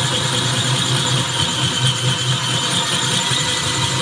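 Electric drill running steadily at speed with a 1 1/4-inch diamond hole saw grinding into a granite countertop, a high whine over a low hum.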